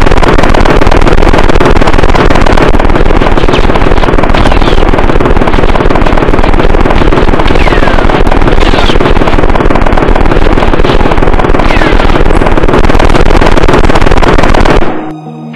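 Automatic gunfire in one long unbroken burst, very loud, with a few short falling whistles through it. It stops suddenly near the end.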